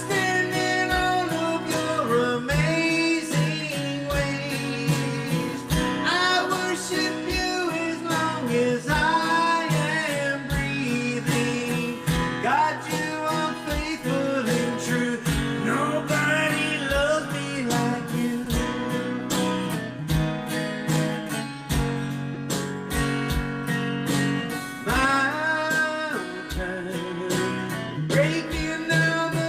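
A worship song sung to strummed acoustic guitar, the voice rising and falling over steady chords.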